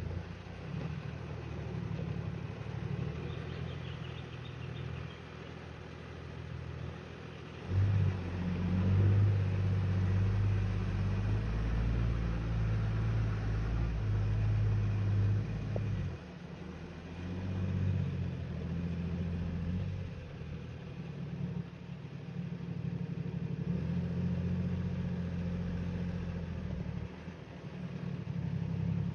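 Toyota LandCruiser 80 Series engine working under load as the truck crawls up a deeply rutted dirt track. It gets much louder and revs harder for several seconds in the middle, then eases back, with smaller rises near the end.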